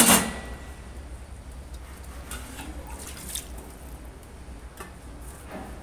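Wet marinated chicken pieces being pushed onto a metal skewer over a steel bowl, giving soft squishing and a few faint clicks. A sharp clank with a brief metallic ring comes right at the start.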